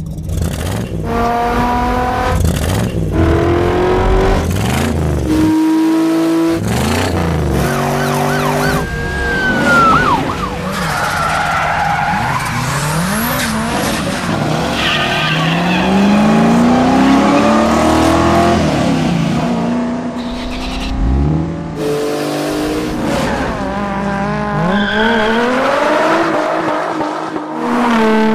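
Car engines revving hard, over and over, each rev climbing in pitch and then dropping as it shifts gear, with tyre squeals mixed in.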